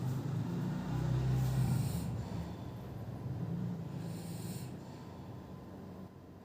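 An elderly person snoring: a low buzzing snore in the first two seconds, then hissing breaths about two and four seconds in, the sound fading toward the end.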